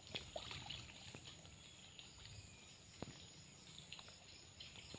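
Faint water sounds of people wading and working a gill net in a muddy creek: soft sloshing and a few small clicks and splashes, over a steady high-pitched insect hum.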